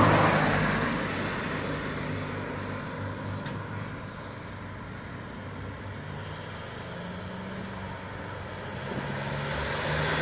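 Road traffic: the low engine hum of passing vehicles, louder at the start, fading through the middle and building again near the end.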